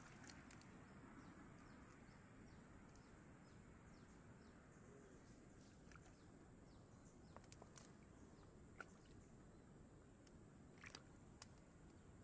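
Near silence: faint outdoor ambience with a steady high-pitched insect drone and a few soft clicks scattered through it.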